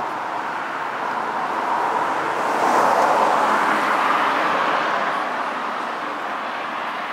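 A car passing on the street: its road noise swells to a peak about three seconds in, then fades away.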